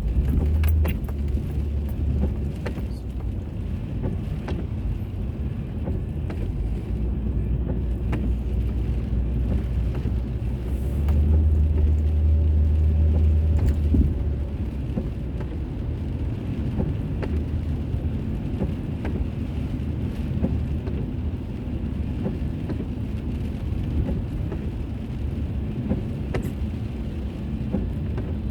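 Car engine and road noise heard from inside a moving car: a steady low rumble that swells louder for a few seconds around the middle, with a few faint clicks over it.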